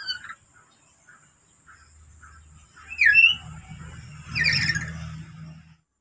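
Black-capped lory calling: a brief call at the start, then two loud, shrill squawks about three and about four and a half seconds in.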